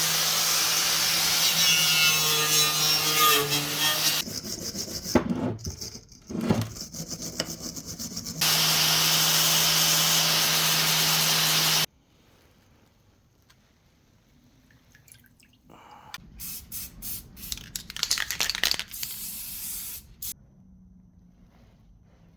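Workshop tool noise: a motor-driven tool runs loudly with a steady hum in two long stretches, broken by choppy scraping and clicks, then a run of short hissing bursts near the end.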